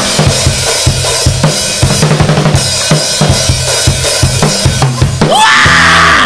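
Live rock band: a drum kit plays a busy run of rapid snare and bass drum hits over bass guitar. About five seconds in, a singer's voice rises into a loud, held scream into the microphone.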